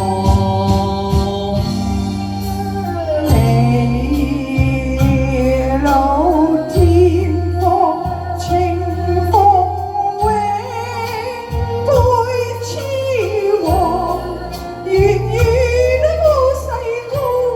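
Cantonese opera song: a woman sings long, drawn-out notes with vibrato over instrumental accompaniment with a steady bass line.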